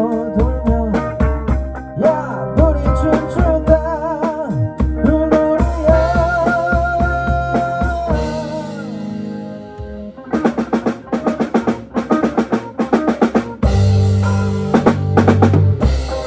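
Background music: a song with a wavering melody line over a drum kit. It softens to a fading held note about halfway through, then comes back with a fast run of drum beats.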